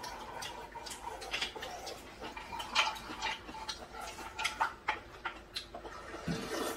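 Scattered light clicks and taps of chopsticks and spoons against dishes and wooden bowls, mixed with small eating sounds, over a faint steady hum.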